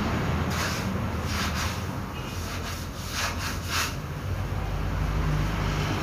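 A rag rubbing and being handled close by: five short scratchy swishes in the first four seconds, over a steady low hum of background machinery.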